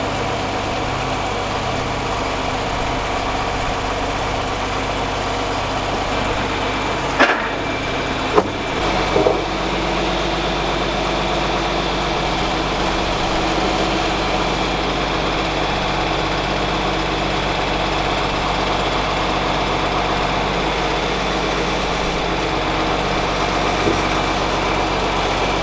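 An engine running steadily, with a few sharp clicks or knocks about seven to nine seconds in.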